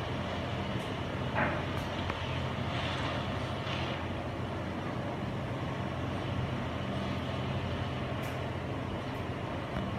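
Heavy diesel engine running steadily with a low hum, with a brief sharper hiss about a second and a half in.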